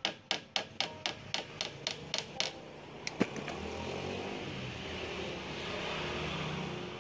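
Quick light hammer taps on thin steel hook wire against an iron block, about four a second with a short metallic ring, straightening the wire; they stop after about two and a half seconds. One sharper tap follows about three seconds in, then a few seconds of rustling as the wire is handled.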